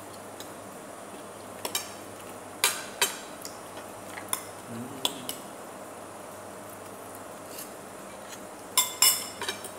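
Metal knife and fork clinking and scraping against a plate while food is cut and picked up. There are a handful of sharp separate clinks through the middle, then a quick cluster of them near the end.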